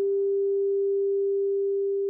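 A steady pure sine tone a little above 400 Hz, played as a 'healing frequency' tone, with a faint fading wash of higher musical layers behind it. It begins to fade out near the end.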